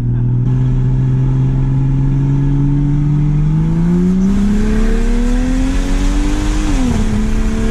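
A car engine runs at a steady pitch for about three seconds, then accelerates hard with its pitch climbing. About seven seconds in there is a short drop in pitch, like a gear change, and then it climbs again.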